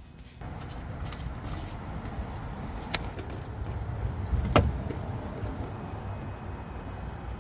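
Spin-on oil filter being unscrewed by a gloved hand and taken off under the car: steady handling noise with a few sharp clicks and knocks, the loudest about four and a half seconds in.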